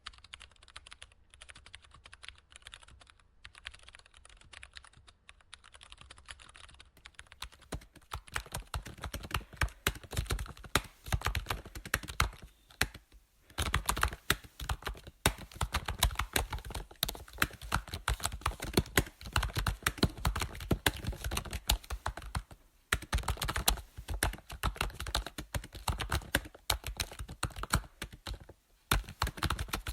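Computer keyboard typing: a rapid, irregular stream of key clicks. It is softer for the first seven seconds or so, then louder and denser, with a few short pauses.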